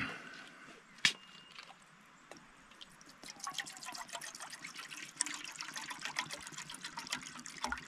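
Water poured from a plastic bottle into a Trangia 27 saucepan, trickling and splashing into the pot from about three seconds in. A single sharp click about a second in.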